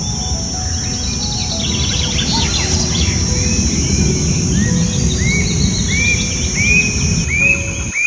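Bird song: from about halfway, a regular series of arched whistled notes, roughly one every two-thirds of a second, each a little higher than the last, after some scattered higher chirps. Underneath run a steady high-pitched buzz, like insects, and a low rushing noise.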